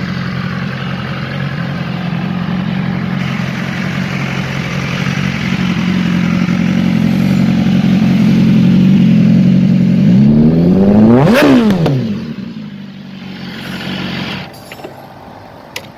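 BMW S1000RR's inline-four engine held at steady revs, growing louder as the bike approaches, sweeping past about eleven seconds in and then fading away. A short click near the end.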